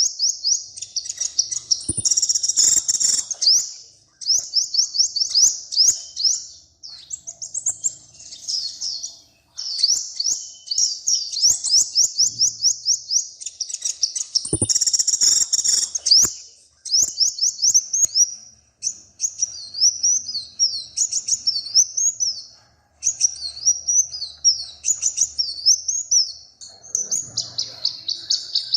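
A small songbird singing: fast, high-pitched trills of rapidly repeated notes in phrases a few seconds long, with short pauses between them. In the last third the notes turn into slurred up-and-down whistles.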